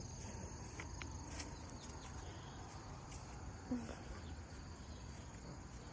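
Crickets trilling steadily at a high pitch, with a faint low rumble underneath.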